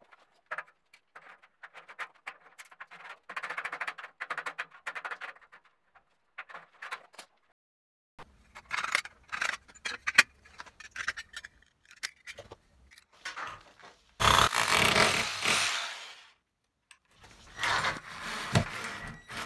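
Steel drywall profiles being handled with scraping and clicking, then aviation snips cutting a steel profile in a series of sharp snips. Near the end a WORX cordless drill drives self-tapping screws into the steel studs in two runs of about two seconds each.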